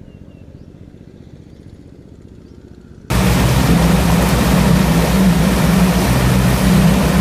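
Quiet open-air ambience. About three seconds in, a loud boat engine cuts in abruptly and runs steadily with an even low throb, under a hissing rush of noise.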